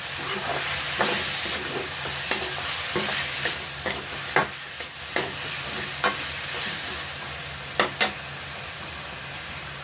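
Chicken pieces frying in a little oil in a pan with a steady sizzle, while a spatula stirs them and knocks against the pan about ten times at irregular intervals.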